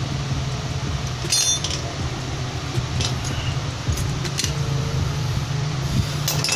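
Metal hand tools clinking against metal a few times, the clearest clink about a second and a half in with a short bright ring, over a steady low hum.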